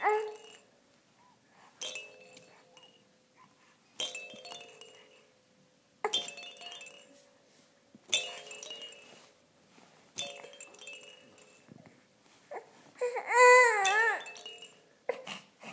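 Chiming toy notes from a baby play gym ring out and fade about every two seconds. About thirteen seconds in, the baby lets out a loud, wavering fussing cry.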